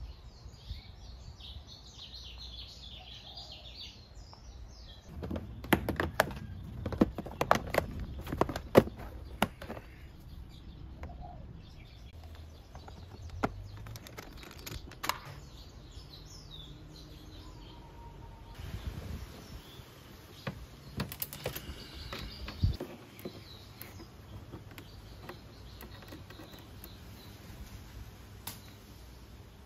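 Clicks and knocks of a Honda PCX 150 scooter's plastic bodywork and fasteners being worked loose by hand and with a Phillips screwdriver, in several clusters, heaviest a few seconds in. Birds chirp faintly in the background.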